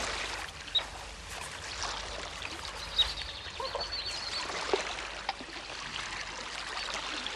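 Running water trickling steadily, with a few short clicks and a brief high chirping about four seconds in.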